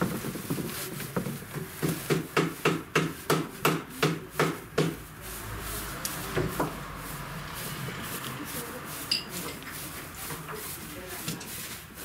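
Hands pulling and teasing loose vegetable-fibre upholstery stuffing over the burlap of a sofa seat: a quick run of rustling strokes, about three a second, for the first five seconds, then softer continuous rustling.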